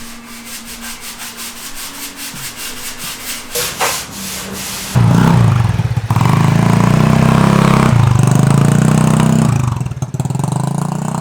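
150cc GY6 four-stroke scooter engine with an aftermarket PG exhaust starting. After a few seconds of fast, even rasping ticks, the engine catches about five seconds in and runs loudly, then settles to a quieter idle near the end. It is running well after its engine-mount repair.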